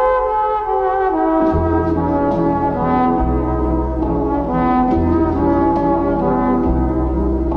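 Instrumental intro music with sustained melody notes; a deep bass line comes in about a second and a half in, changing note every couple of seconds.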